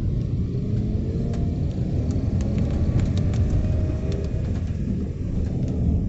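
Low, steady vehicle rumble, with scattered light ticks of rain falling in a light shower.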